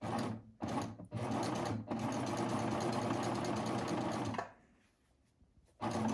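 Baby Lock eight-thread serger running: two short bursts, then a steady run of about three seconds that stops, and a restart near the end. It is serging the curved edge of knit fabric with the differential feed set to gather.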